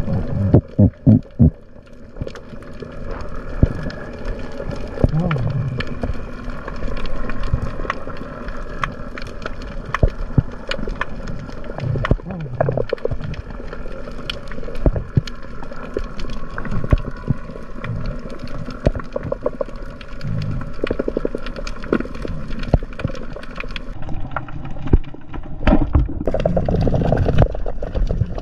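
Underwater reef ambience heard through a camera housing: dense crackling clicks with low knocks and water swishes as the diver moves. A steady hum of several tones runs underneath and stops about 24 seconds in.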